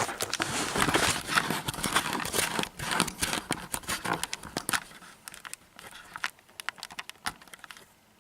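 Handling noise of a camera being picked up and turned around: rubbing and rustling against the microphone with many small clicks and knocks, busy for about five seconds and then thinning to a few scattered clicks.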